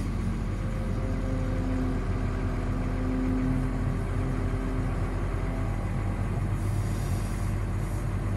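1997 Samsung MX202W wheel excavator's diesel engine running steadily, with a steady whine over it from about one to four seconds in while the boom and bucket are lowered.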